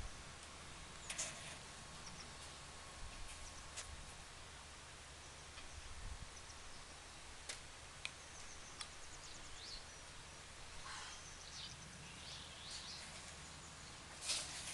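Quiet outdoor background with faint bird chirps in the second half and a few scattered light clicks.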